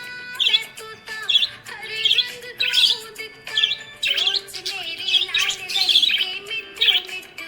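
Budgerigars chirping in short, high, repeated calls about twice a second, over background music with a held melody line.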